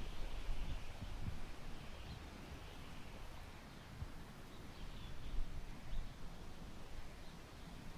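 Warm summer wind gusting through tall grass, rising and easing, with a low rumble of wind on the microphone. A few faint bird chirps sound now and then.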